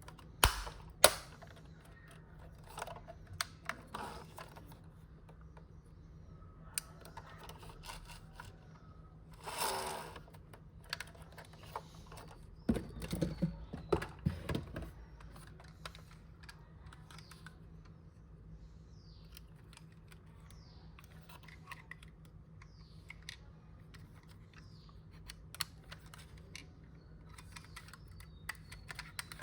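Handling noise from unboxing a diecast model car: sharp clicks and taps, a brief rustle about ten seconds in, and a spell of clattering a few seconds later, then scattered light ticks.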